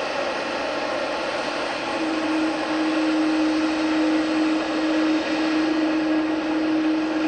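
Airbus A310-304's twin jet engines running steadily at low taxi power: an even jet rush with a whine. About two seconds in, a strong steady tone joins and the sound grows a little louder.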